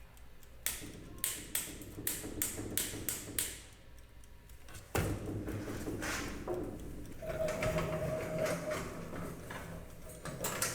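Workshop handling noises: a quick series of sharp clicks and taps, then about five seconds in a sudden louder clatter that runs on as busy mechanical noise with a brief steady whine.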